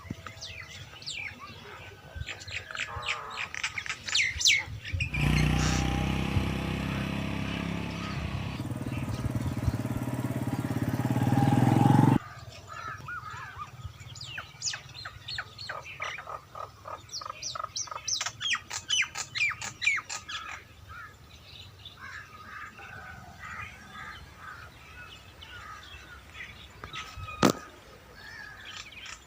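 Birds chirping and calling. About five seconds in, a louder steady noise covers them for some seven seconds and then cuts off abruptly. Near the end there is a single sharp click.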